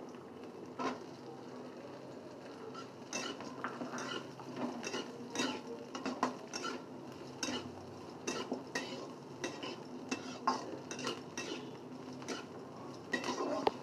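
Spatula scraping and knocking against a kadai while onion, garlic and whole spices are stir-fried in oil, with a light sizzle underneath. The strokes are short and irregular, becoming frequent about three seconds in.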